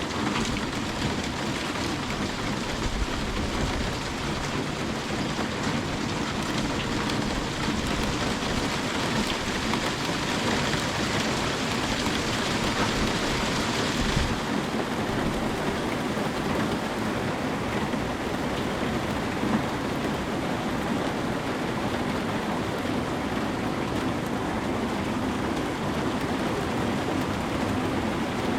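Steady rain falling, an even hiss of drops. About halfway through, the highest part of the hiss drops away suddenly.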